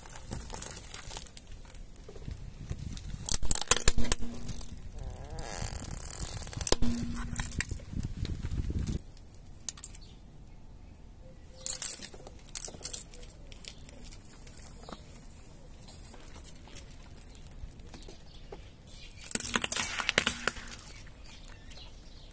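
A car tyre rolling slowly over small objects on concrete and crushing them: plastic gumball trays and gumballs, plastic-handled knives and a jelly candy pack. It comes as several separate bursts of cracking and crunching, the loudest about four seconds in, over a low rumble during the first nine seconds.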